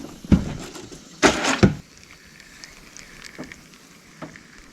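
A few knocks and thumps from handling fishing gear in a small boat, with a louder clattering burst about a second in and a few faint ticks later.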